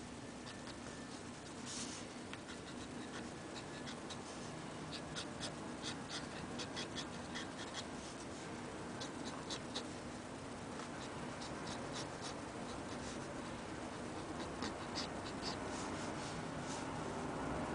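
Steel-nibbed Onoto fountain pen scratching on paper in short, quick strokes as ink lines are drawn, the strokes coming in clusters with pauses between, over a steady low room hum.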